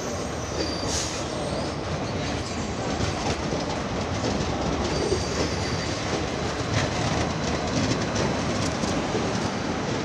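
Passenger train coaches rolling past on the rails: a steady rumble of wheels on track with clicks over the rail joints and a few faint, brief high squeals from the wheels.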